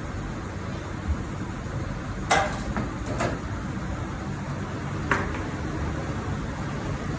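A few short metallic clanks and knocks from tyre-changing work (tools and wheel parts being handled and set down), the loudest about two seconds in and another about five seconds in, over a steady low hum.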